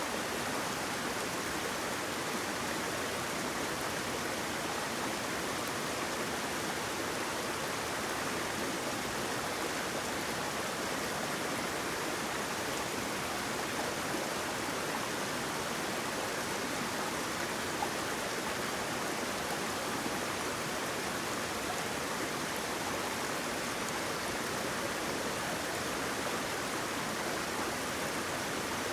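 Water rushing and splashing in a steady, even flow, as from a small waterfall or fast stream.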